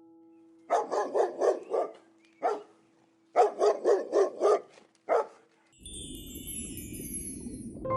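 Dog barking in two quick runs of about five or six barks, each run followed by a single bark. Near the end, a series of high falling chirps over a hiss.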